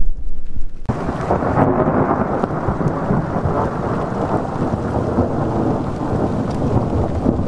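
Thunder rumbling low for about the first second, then heavy rain noise that starts abruptly and runs steadily over a continuing low rumble.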